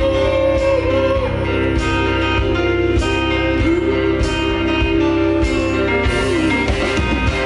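Live band playing loud amplified music: strummed acoustic guitars over drums, with a lead line that glides between notes and cymbal hits about once a second.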